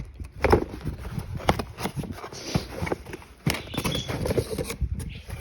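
A packaged product box being handled and opened: irregular knocks, taps and rustling.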